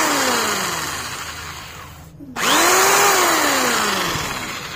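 Buildskill 10 mm pistol-grip electric drill running free with a long bit in the chuck, its whine falling as it winds down. About two seconds in it is switched on again: the motor spins up quickly, then coasts down once more.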